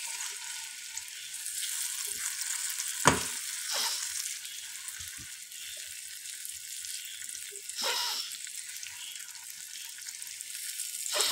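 Egg, onion and tomato omelette mixture sizzling in oil in a frying pan, a steady hiss, while a flat spatula scrapes and knocks against the pan a few times, the sharpest knock about three seconds in.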